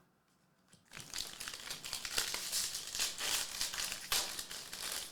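Foil wrapper of a Topps Series 1 jumbo baseball card pack crinkling as it is handled and opened, with many small crackles from about a second in.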